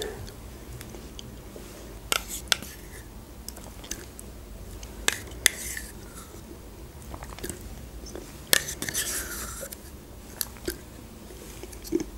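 Yogurt being eaten with a metal spoon from a small plastic cup: scattered sharp clicks and mouth smacks of the spoon against the cup and lips, with a short scraping stretch about nine seconds in.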